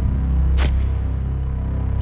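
Dark, low background music with a steady drone. Over it, a small pocket spy camera's shutter gives a sharp double click about half a second in and again right at the end, as photo after photo is taken.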